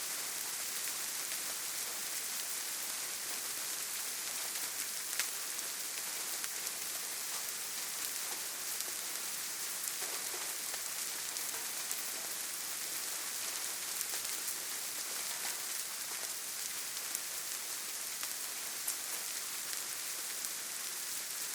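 Steady rain falling, a dense even hiss with scattered individual drops ticking out now and then.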